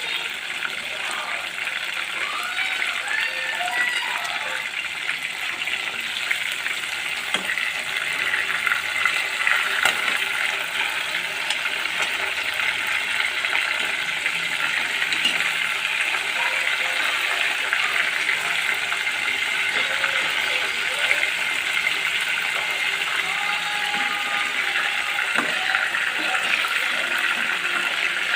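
Chicken frying in hot oil: a steady sizzling crackle that grows a little louder about eight seconds in.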